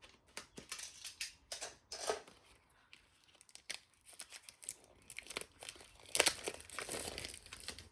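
Packaging on a small box being cut and torn open by hand, with irregular snips, tearing and crinkling rustles that grow denser and louder near the end.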